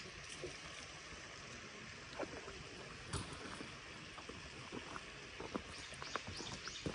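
Faint steady outdoor hiss by a pond, with scattered light knocks and clicks from handling a spinning rod and tackle, the sharpest about three seconds in. Near the end comes a quick run of high chirps.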